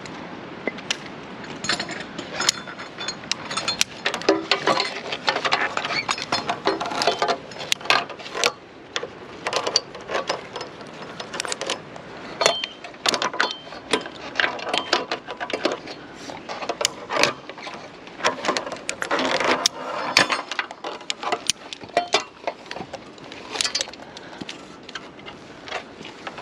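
Metal zipline safety gear clinking and scraping: a continuous-belay carabiner and trolley being handled and slid on steel cable, with many irregular clicks and knocks.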